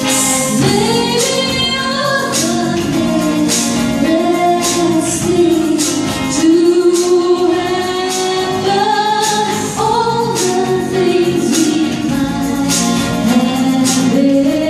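A small rock band playing live: a woman sings the melody, entering about half a second in, over electric guitar, bass guitar, keyboard and an electronic drum kit with regular cymbal hits.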